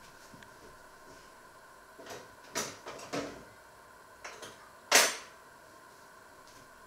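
A few sharp knocks and clatters from household things being handled in a small room. The loudest is a single knock about five seconds in.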